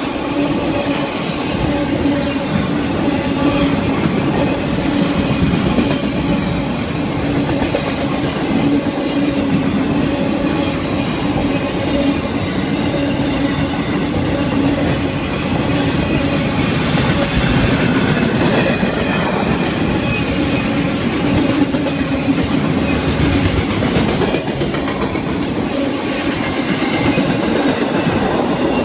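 Circus train cars rolling steadily past at close range: a continuous rumble of steel wheels on rail with clickety-clack over the rail joints and a steady hum.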